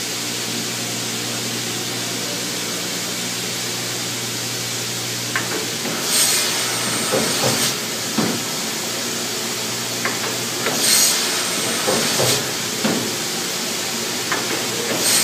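Weinig OptiCut optimizing crosscut saw working a board after being started: a steady machine hum, then from about six seconds in three short loud hissy cuts about four to five seconds apart, with sharp knocks between them.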